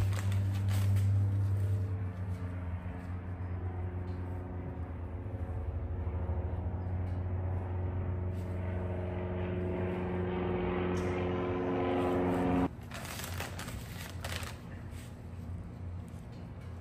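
A steady motor hum, evenly pitched with many overtones, that cuts off suddenly about three-quarters of the way through, leaving a fainter noisy background.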